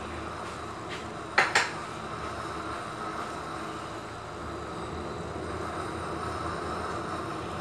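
Two quick metallic clanks of kitchenware, a fraction of a second apart, about one and a half seconds in, over a steady background hiss.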